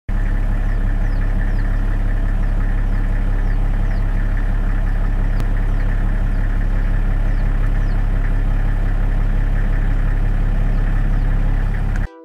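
A loud, steady low mechanical drone, like an idling engine, with faint short falling high chirps repeating over it. It cuts off suddenly near the end.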